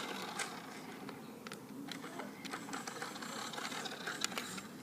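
Irregular small clicks and rattles from handling and fiddling with a toy remote control car that isn't working right. There is no steady motor whine.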